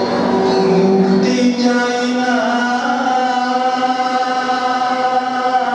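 Music with a chanted vocal, sung in long held notes over a steady drone; the pitch bends briefly about two seconds in.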